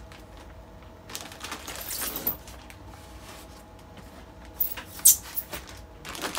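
Plastic bags of kimchi rustling and crinkling as they are handled inside a styrofoam box, then a few short, sharp squeaks and knocks from the styrofoam box and lid being handled, about five seconds in.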